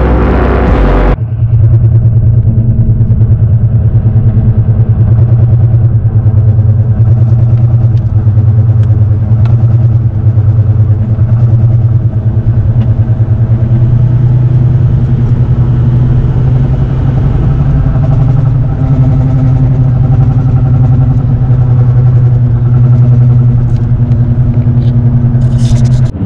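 Loud, steady drone with a fast, even throb from a bad front wheel bearing on a 2015 Ram 1500 4x4 EcoDiesel, driving at about 60 mph. Music cuts off about a second in.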